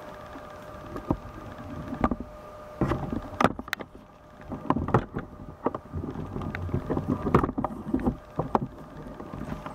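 Camera handling noise: irregular knocks, clicks and rubbing as the camera and tripod are moved and turned, over a faint steady high hum.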